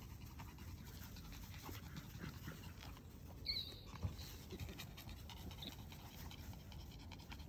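Puppies play-fighting, faint panting and scuffling, with one short high yip about three and a half seconds in.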